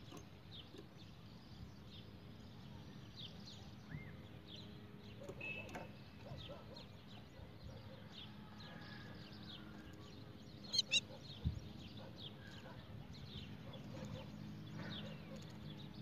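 Faint, scattered short chirps from small caged birds, a few a second. About eleven seconds in come three quick, louder sharp ticks, then a single low thump.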